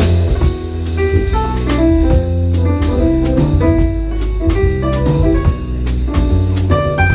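Jazz quartet playing live: a steady drum-kit groove with cymbals, a strong bass line and piano/keyboard chords, in a lineup with tenor saxophone.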